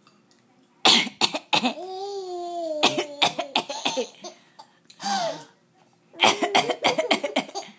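An adult coughs in short, sharp bursts several times, and a baby answers with a long, sliding squeal and bouts of laughter.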